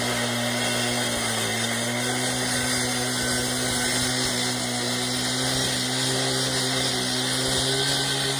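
Two-stroke gas cut-off saw running at high speed, its diamond blade grinding through a concrete sidewalk: a steady engine drone under a dense hiss of cutting. The engine pitch sags slightly about a second in as the blade bites, then holds steady.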